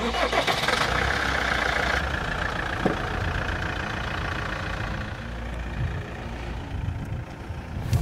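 Motorhome engine running, a steady low rumble with road or engine noise, starting suddenly.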